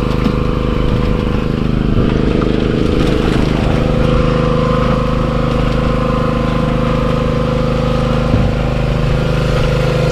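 An engine running steadily at a constant pitch, a continuous drone with no revving.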